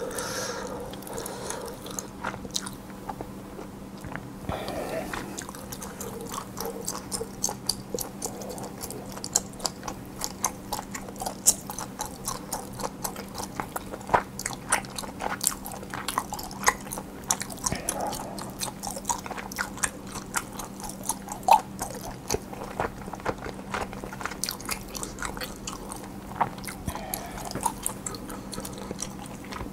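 Close-miked eating: steady chewing and biting, with many small sharp crunchy and wet clicks and a few louder bites, over a faint steady hum.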